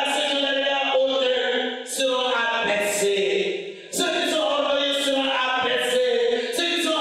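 A man's voice chanting a prayer through a microphone, in long held pitched phrases broken by short pauses.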